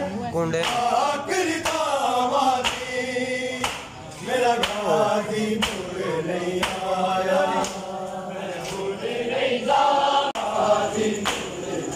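Group of men chanting a noha, a Shia lament, together, with sharp slaps of hands on bare chests (matam) in a steady beat about once a second.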